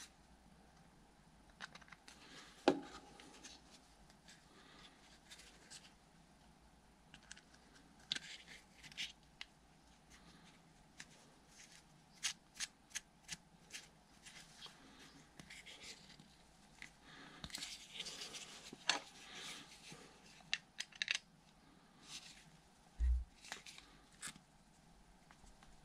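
Faint, scattered clicks and scrapes of hands fitting a small brass pin into a plastic throttle-linkage lever and turning it in with a screwdriver, with one sharper click about three seconds in and a low thump near the end.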